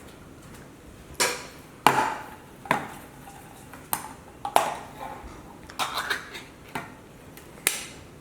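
Kitchen dishes and utensils knocking and clattering about nine times at uneven intervals, each hit sharp with a brief ring, as they are handled and struck.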